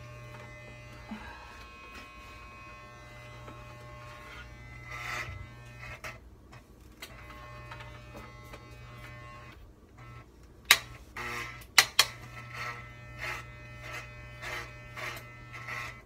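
Corded electric hair clippers with a guard running with a steady buzz while cutting through a curly synthetic wig. A few sharp knocks come about eleven and twelve seconds in.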